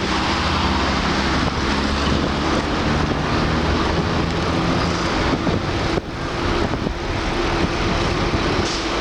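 Car driving along a city street: engine running under steady road and wind noise, with a brief dip in loudness about six seconds in.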